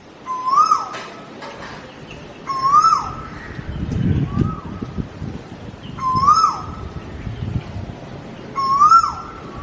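A bird calling over and over, about half a dozen short calls that each rise and then drop in pitch, with soft low rustling between them.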